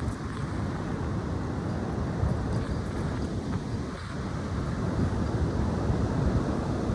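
High wind blowing steadily, buffeting the microphone.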